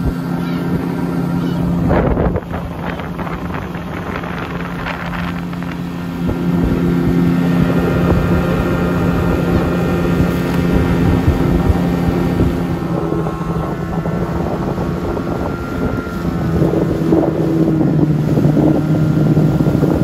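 Outboard motor of a small boat running at steady speed, a constant hum with wind buffeting the microphone. The engine note gets louder about six seconds in and shifts pitch about two-thirds of the way through.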